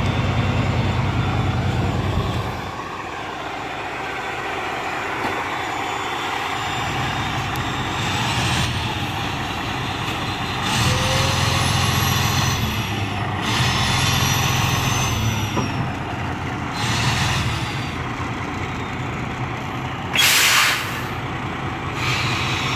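Semi tractor's diesel engine running as the bobtail pulls forward in drive, swelling and easing several times as it is throttled. A short, sharp hiss of air about twenty seconds in, typical of air brakes being applied.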